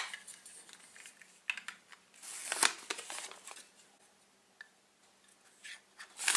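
Chunky plastic toy building pieces clicking lightly as they are handled, with short crinkly noises of a leaf sticker being peeled from its sheet and pressed on; the longest crinkle comes about two and a half seconds in.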